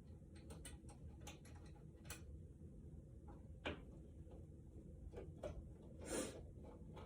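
Faint, scattered clicks and small scrapes of a flathead screwdriver turning out the metal mounting screws of a wall light switch, with a short louder scrape about six seconds in.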